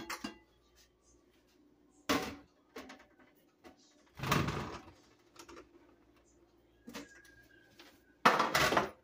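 Metal baking pans being handled and set down at a kitchen sink and counter: a handful of separate knocks and clatters with quiet gaps, the loudest near the end.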